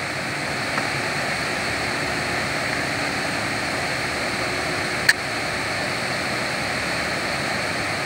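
Steady rushing roar of a waterfall pouring over rock ledges, with one brief sharp click about five seconds in.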